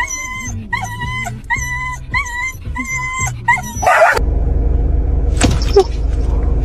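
A dog gives about six short, high-pitched yips in quick succession. About four seconds in the sound cuts abruptly to a steady low hum with noise.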